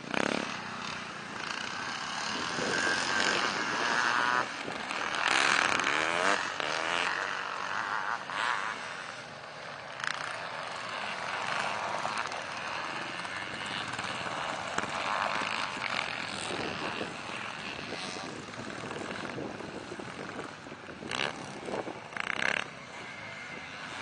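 Several vintage motocross bikes' engines revving and changing pitch as they ride a dirt track. One bike is loudest as it passes close about five to seven seconds in, its pitch gliding up and down, while the others run more distantly.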